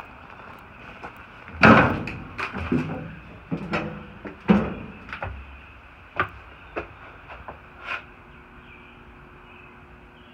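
Irregular clattering bangs and knocks from climbing into a stationary steel passenger coach: footsteps on its metal steps and vestibule floor, about a dozen in all, the loudest about a second and a half in, tailing off after about eight seconds.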